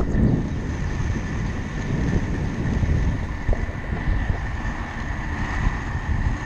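Steady rush of wind on the camera microphone over the rumble of 110 mm inline skate wheels rolling fast on asphalt.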